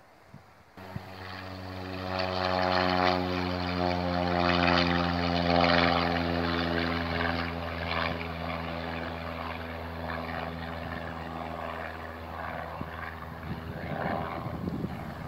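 Airbus A320 airliner's jet engines heard at a distance: a steady low hum under a rushing roar. It cuts in abruptly about a second in and swells over the next couple of seconds.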